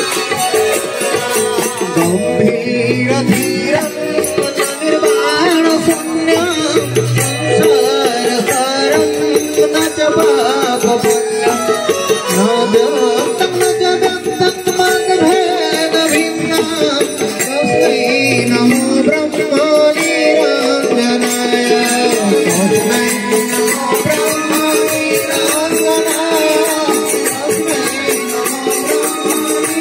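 Odia Mahima devotional bhajan performed live: voices singing over a steady held organ tone, with continuous rattling hand percussion.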